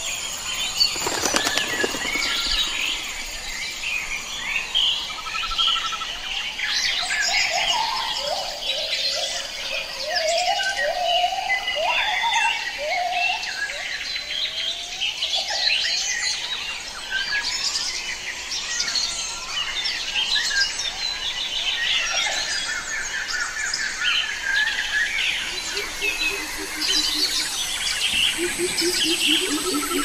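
Tropical forest bird chorus: many birds chirping and calling at once in quick, overlapping notes. Near the end a lower, rapidly pulsed call joins in.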